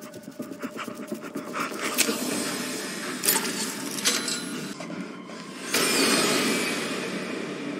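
Film sound effects: rustling and scraping with scattered sharp metallic clicks and clinks, then a sudden loud rushing whoosh a little before six seconds in that slowly fades.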